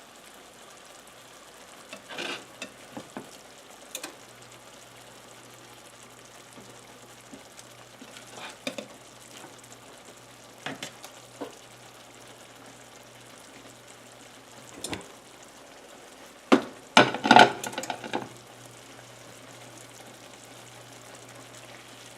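Frying pan of onions and beef broth sizzling steadily, with scattered clinks and scrapes of a metal utensil against the pan as beef patties are set back in, the loudest cluster about three quarters of the way through.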